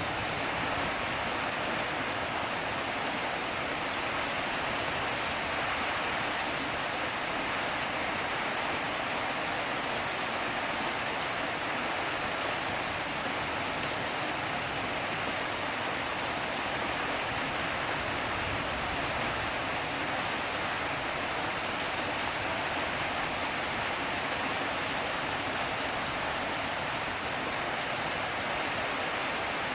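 Heavy rain pouring in strong wind: a steady, even rushing hiss that holds unchanged throughout.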